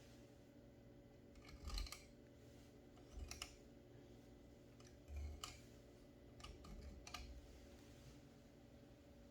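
Brother Charger 11 manual typewriter being worked: four short bursts of sharp mechanical clicks and clacks with dull thumps, about every two seconds, over a faint steady hum.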